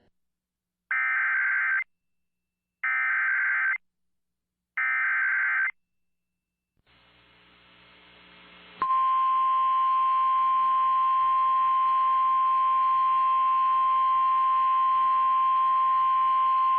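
Emergency Alert System SAME header: three identical bursts of raspy digital data, each about a second long with a second's gap between them. A few seconds later a steady single-pitch alert tone near 1 kHz, the 1050 Hz weather-radio warning tone, starts abruptly and holds. Together they signal the start of a new severe thunderstorm warning.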